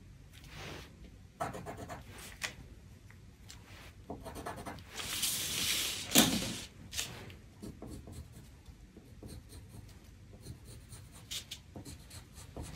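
Pencil scratching lines on brown drafting paper along a ruler, in short strokes. About halfway through the paper rustles as it is slid and turned on the wooden table, with a knock, the loudest sound, as it settles.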